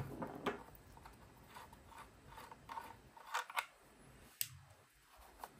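Faint scattered clicks and taps of a hand-held 3D-printed plastic device case being handled, the sharpest about four seconds in.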